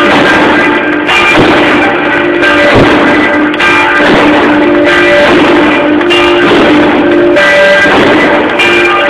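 Church tower bell rung 'a slancio', swung up full circle in the Neapolitan way, striking about once every second or second and a half. Each stroke's ringing hum carries on into the next, so the peal never dies away.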